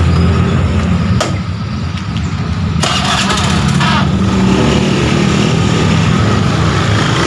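Motorcycle engine running steadily, with a single sharp click about a second in.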